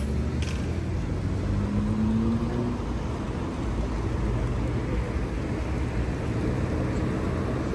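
A car driving: steady low engine and road rumble, with the engine note rising briefly about two seconds in.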